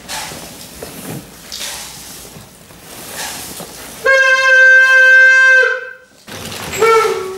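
A steady, horn-like blown tone held at one pitch for about a second and a half, starting about four seconds in, followed near the end by a shorter tone that drops in pitch.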